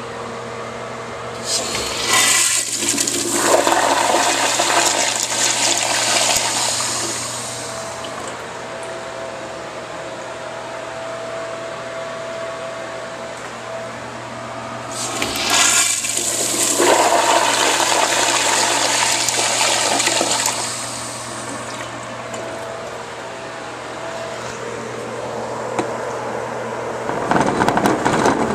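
Crane Hymont toilet flushing twice through its manual flushometer valve. Each flush is a rush of water lasting about six seconds, the second starting about fourteen seconds after the first, over a steady hum. A low rumble sets in near the end.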